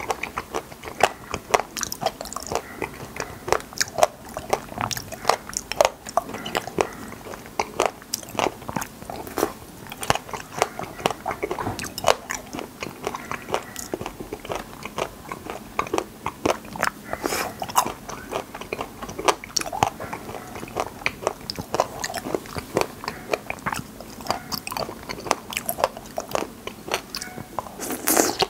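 Close-miked biting and chewing of glossy-coated wild raspberries on a skewer: a dense run of sharp, crackly crunches with wet chewing in between, and one loud crunch near the end as a fresh bite is taken.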